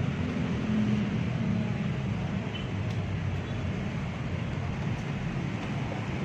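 Steady low rumble with a fainter hiss, like a running vehicle or machine, with no distinct knocks or changes.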